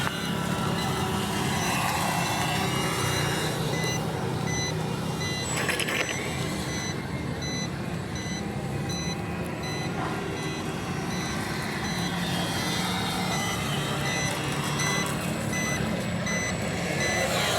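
An electronic beep repeating evenly throughout, like a vehicle's reversing alarm, over a steady low motor drone with a few slow rising and falling whines.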